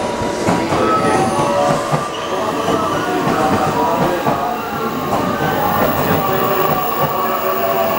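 JR West 223 series 1000 electric train pulling into the platform and passing close by, wheels rolling and clattering on the rails with shifting squealing tones from the wheels and brakes.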